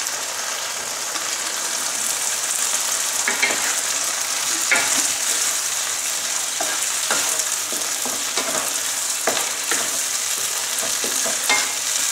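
Penne in tomato arrabbiata sauce sizzling in a hot frying pan with a steady high hiss while being stirred; a utensil scrapes and knocks against the pan several times.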